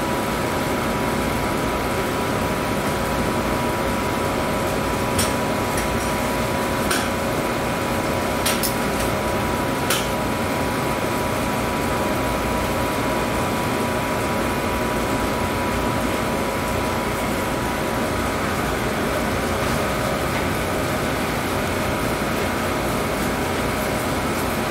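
Steady rushing of cleanroom air handling, with a faint steady whine running under it. A few sharp clicks come about five to ten seconds in.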